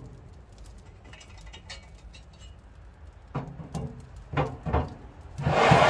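Metal cooking grates knocking and clanking against the grill body as they are set into place over the charcoal: a few light knocks past the middle, then a louder clatter near the end as a grate drops in.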